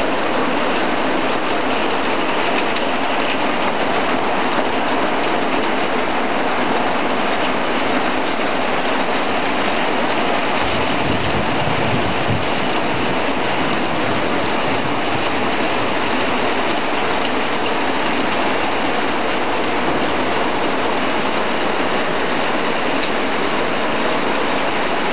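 Heavy rain pouring steadily in a thunderstorm, a dense unbroken hiss of water. A brief low rumble rises under it about ten seconds in.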